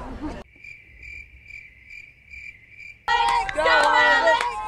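Insect chirping: a steady high chirp repeated between two and three times a second, heard after crowd chatter cuts off abruptly. About three seconds in, loud crowd voices break in.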